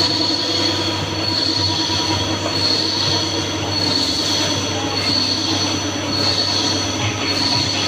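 Wintec TC15 CNC lathe running, with a high whine that swells and fades about once a second over a steady low hum.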